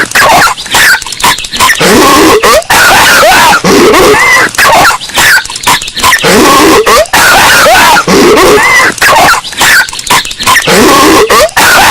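Patrick Star's cartoon coughing and hacking, looped and boosted until it is heavily distorted, very loud throughout. The same stretch of coughing repeats about every four seconds, roughly three times.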